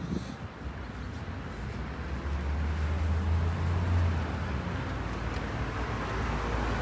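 City street traffic, with a motor vehicle passing close by. Its low engine and tyre rumble swells and is loudest about three to four seconds in, then eases.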